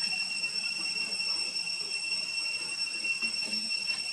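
A steady high-pitched whine on a few unchanging tones, with a faint low murmur beneath it.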